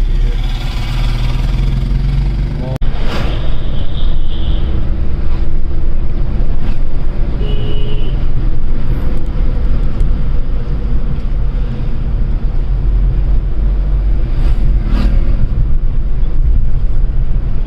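Steady low rumble of a moving vehicle, with a few faint knocks and short tones on top.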